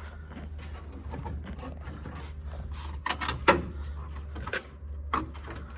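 Scattered clicks and knocks as a car's dash pad is tugged and worked by hand to find where it is still fastened, the sharpest knock about three and a half seconds in, over a steady low hum.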